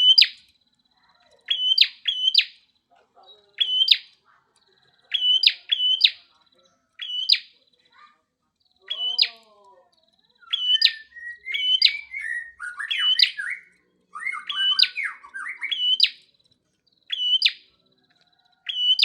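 Caged songbirds calling: a short, sharp chirp repeated about once a second, often in quick pairs. A stretch of busier twittering song runs through the middle.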